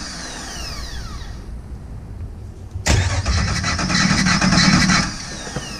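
Jeep Wrangler TJ 4.0-litre inline-six being turned over by its starter for a compression test. A burst of cranking stops at the start and the starter's whine falls away, then a second burst of rhythmic cranking comes about three seconds in and lasts about two seconds, again ending in a falling whine. The compression gauge's hose is not seating in the spark plug hole.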